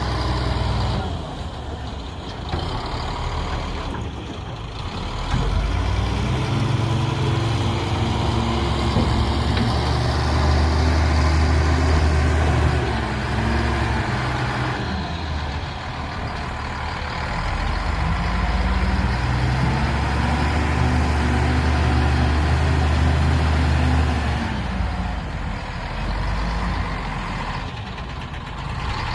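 Heavy diesel engine of an earthmoving machine working, twice building up under load and easing back.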